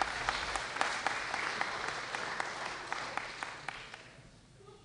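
Audience applauding, a dense patter of many hands clapping that dies away about four seconds in.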